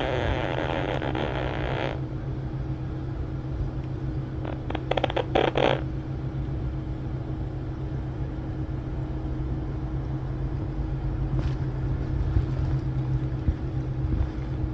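Quaker parrot snoring in its sleep: a breathy rasp over the first two seconds, then a short run of rapid clicking pulses about five seconds in. A steady low rumble runs underneath throughout.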